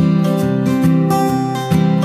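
Background music led by a strummed acoustic guitar, chords changing about every half second.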